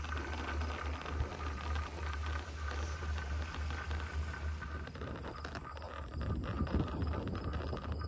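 Wind buffeting the microphone on a moving open chairlift: a steady, uneven low rumble with a noisy hiss, and a faint steady whine underneath.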